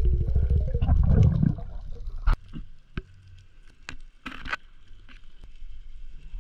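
Underwater sound picked up by a diver's camera: a low, pulsing rush of water for about the first second and a half. It then drops much quieter, with a few sharp clicks and a brief noisy rush a little after four seconds in.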